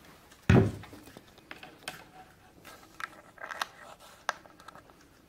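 One heavy thump about half a second in, then light clicks and scratching of thin picture wire being wound by hand around a screw on a wooden canvas stretcher frame.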